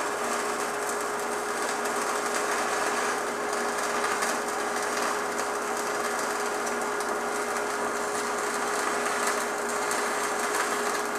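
Stick-welding arc from a Tweco Fabricator 141i inverter welder burning a 3/32 in. 6013 rod at 90 amps. It makes a steady sizzle with a constant tone beneath it, and cuts off right at the end as the arc is broken. The welder says afterwards that he let the arc get too long.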